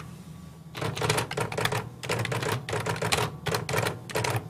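Rapid mechanical clatter of many small clicks, starting about a second in and coming in bursts with brief pauses, over a steady low hum.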